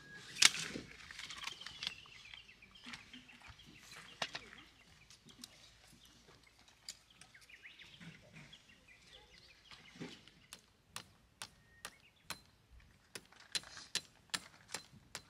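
Folding camp chair being collapsed, with a sharp clack from its frame about half a second in and fabric rustling. Later comes a run of sharp clicks, about two a second.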